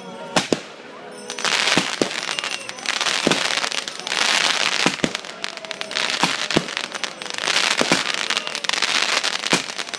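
Fireworks: a run of aerial shell bursts, with sharp bangs near the start and then repeated waves of dense crackling from the glittering crackle stars, broken by further sharp bangs.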